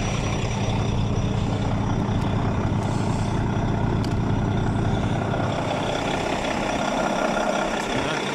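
Heavy truck's diesel engine idling steadily, with a few faint clicks.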